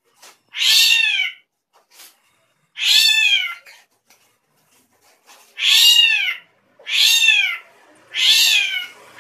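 Srigunting krantil drongo giving a cat-like meowing call, each call rising and then falling in pitch, repeated five times at gaps of about one to two seconds.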